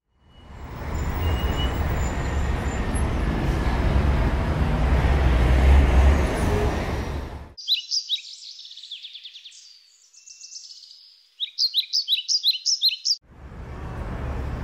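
Road and engine noise inside a moving car's cabin, a steady low rumble, stops abruptly after about seven and a half seconds. Small birds chirping in quick repeated trills follow, then the car cabin rumble cuts back in abruptly near the end.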